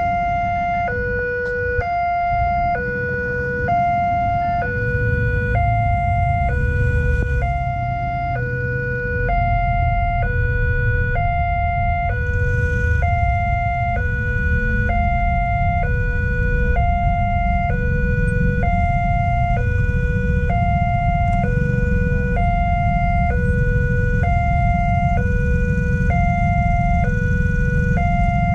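Railway level-crossing warning siren from a pole-mounted horn loudspeaker: an electronic two-tone that switches back and forth between a higher and a lower pitch, each held about two-thirds of a second, signalling that a train is approaching and the barriers are closing. A steady low rumble runs underneath.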